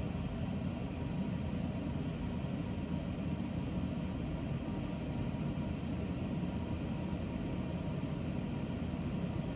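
A steady low rumbling hum with a faint steady tone over it, with no distinct events.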